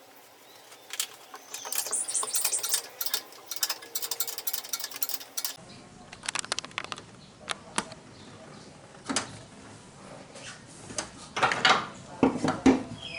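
Metal hand tools and bolts clinking and clattering against metal, with a dense run of rapid clicks about two to four seconds in and a few louder knocks near the end, as the engine mounting bolts are worked on.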